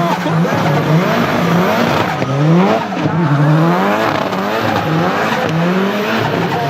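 Tuned 500+ hp Nissan 200SX engine revving up and down over and over, the pitch rising and falling about once a second as the throttle is worked, with tyre squeal underneath.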